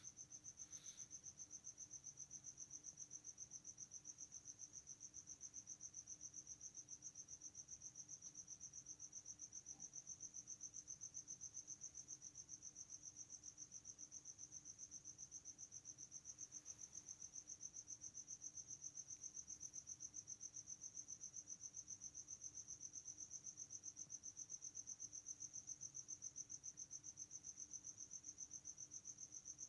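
Faint, continuous high-pitched insect trill with a rapid, even pulse, over a faint low hum.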